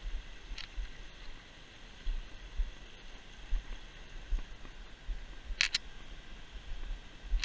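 Handling and wind rumble on a handheld camera's microphone over a faint steady hiss, with a few sharp clicks: one near the start, a quick pair about two-thirds of the way in, and one at the very end.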